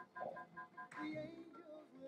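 Background music, with quick repeated high notes, about six or seven a second, in the first half and a sung melodic line after.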